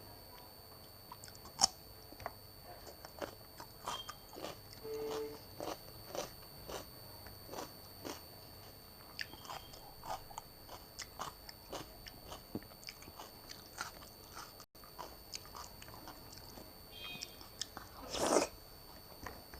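Close-miked eating: chewing and biting with many small wet clicks and crisp crunches, as of raw cucumber eaten with soft khichdi and dal. There is one sharp crunch near the start and a longer, louder crunchy chew near the end.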